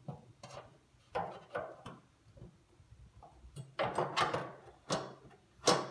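Metal clunks and knocks of a new burner tube being rocked and set into place in a Char-Broil propane grill's firebox. They come in several short clusters, the loudest about four seconds in and again near the end.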